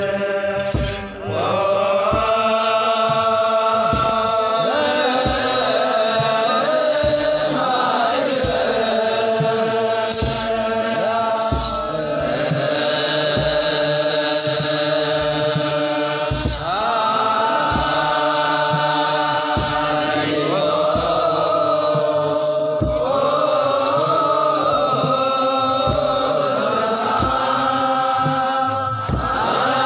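Ethiopian Orthodox clergy chanting wereb together, a slow group chant of long held and gliding notes, over the steady jingle of hand-held sistra (tsenatsel) shaken on a regular beat.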